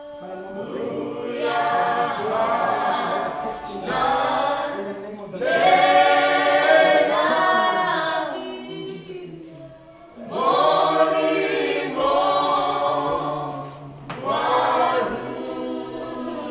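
Voices singing unaccompanied, in four long phrases of a few seconds each with short breaths between them.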